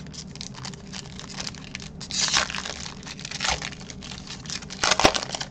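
Foil Pokémon booster pack wrapper crinkling in the hands as it is torn open, with a louder stretch of tearing about two seconds in and a sharp rip near the end.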